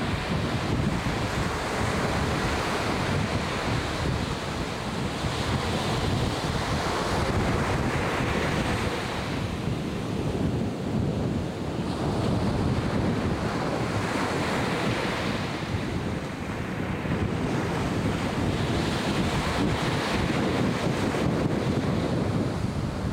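Atlantic Ocean surf breaking on a beach, swelling and falling back every few seconds. Wind buffets the microphone with a steady low rumble.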